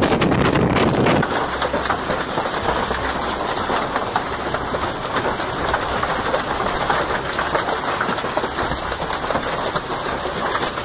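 Strong wind buffeting the microphone for about a second, then a steady, dense pelting of hail and heavy rain.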